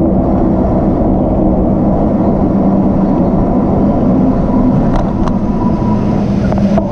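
Steady wind rumble on the camera microphone and tyre noise from a bicycle riding on asphalt, with road traffic running alongside. Two light clicks about five seconds in.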